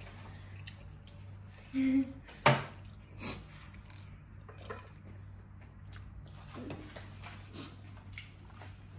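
Tableware clinking and knocking during a meal, with one sharp knock about two and a half seconds in and scattered lighter clicks after it, over a steady low hum.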